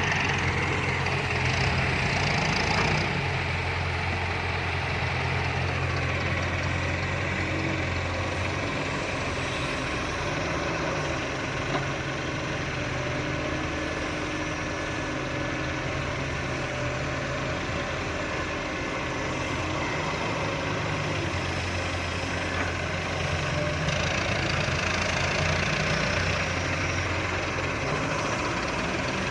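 Fiat-Hitachi 150.3 excavator's diesel engine running steadily as the machine works. The engine note swells for a few seconds at a time, near the start and again near the end.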